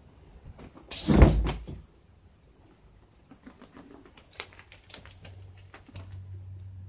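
A brief, loud scuffling knock about a second in, then a few faint clicks and taps, and a low hum near the end.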